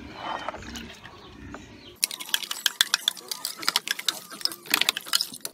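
A spatula scraping and tapping inside a plastic measuring jug to work out thick, concentrated fabric softener, a fast run of scratchy clicks starting about two seconds in.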